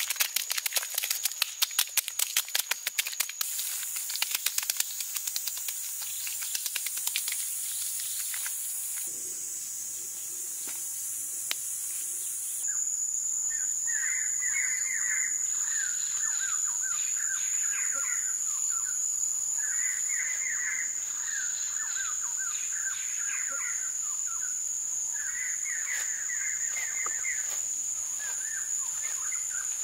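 Wet mud being smoothed and slapped by hand, a dense run of quick squelching clicks for the first several seconds. Then forest ambience: a steady high insect drone with birds chirping in short repeated phrases.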